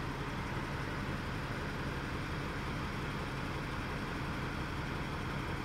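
Diesel railcar engine idling steadily, a constant low hum that does not change in pitch or loudness.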